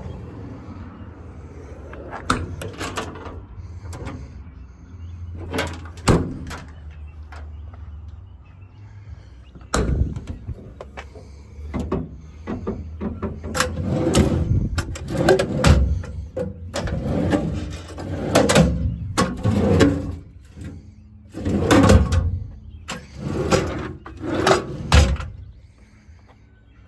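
Metal toolbox compartment doors and latches on a truck's service body being worked by hand: a string of clanks, clicks and knocks, sparse at first and coming thick and fast in the second half, over a low steady rumble.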